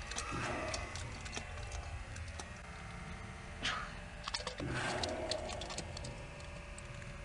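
Scattered, irregular clicks and taps from hands on the recording device close to the microphone, over a low rumble.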